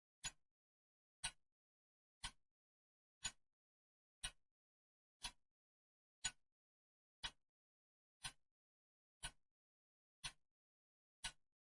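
Clock ticking steadily, one sharp tick a second with silence between the ticks.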